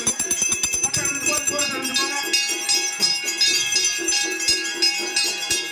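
Bells ringing rapidly over festival music, with people's voices mixed in.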